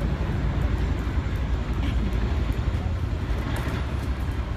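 Steady low rumble of city traffic, with a faint haze of general outdoor noise and no distinct events.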